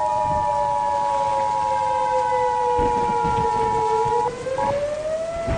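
Emergency Alert System two-tone attention signal sounding steadily over a slowly rising and falling civil defense siren wail, with a few low rumbles underneath. The attention tone cuts off about four seconds in, followed by a short blip, while the siren wail keeps going.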